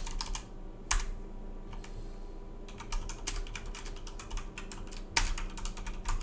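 Typing on a mechanical computer keyboard: irregular runs of key clicks with short pauses between them, and one louder single key strike about a second in.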